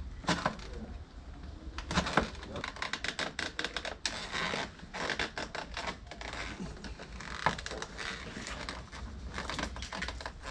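Plastic interior door-mirror trim cover being worked and pried loose by hand: a dense run of small clicks, ticks and scratches of plastic on plastic as its clips are eased off.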